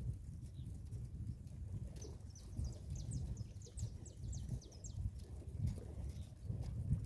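A bird chirping, a quick run of short high notes that fall in pitch, a couple of seconds in, over an uneven low rumble.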